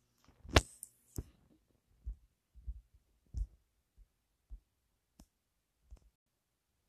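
Handling noise from a phone being tapped and held while its screen is navigated: a sharp click about half a second in, then a scatter of soft, irregular low thumps and taps.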